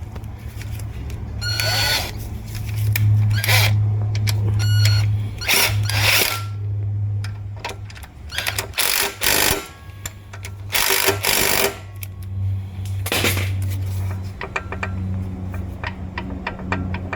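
Hand tools clanking and scraping on metal engine parts, a run of irregular sharp knocks and rasping scrapes over a steady low hum.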